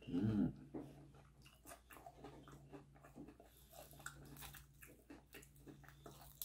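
A person chewing crispy chicharon bulaklak (deep-fried pork mesentery), with many small crackling crunches in the mouth. A short vocal sound comes at the very start.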